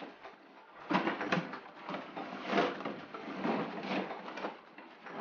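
Cardboard box flaps being pulled open and handled, with irregular bursts of scraping and rustling cardboard.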